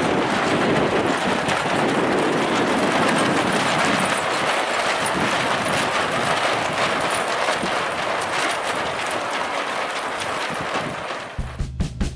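A steady rushing noise of wind, with a scatter of faint ticks and taps. About a second before the end, music with a drum beat and bass starts.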